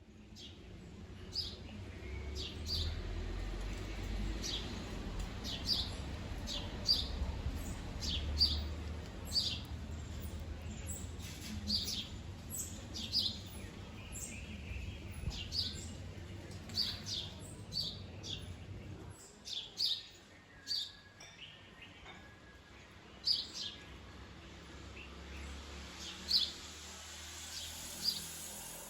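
Small birds chirping: many short, high, falling chirps repeated throughout, over a low rumble that stops about two-thirds of the way through.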